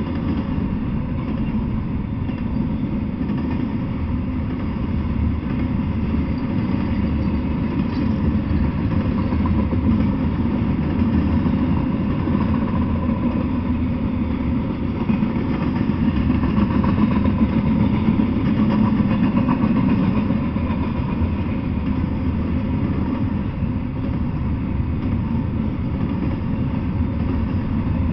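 Double-stack intermodal freight train rolling past: a steady low rumble of steel wheels on rail and the well cars, swelling a little near the middle.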